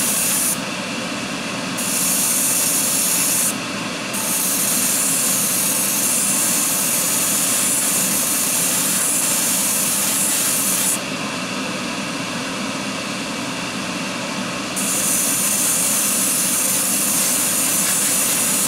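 Airbrush spraying clear coat: a steady high hiss of air that drops away three times, briefly about a second in, again near four seconds, and for nearly four seconds in the later part. A steadier, lower rushing noise runs on underneath.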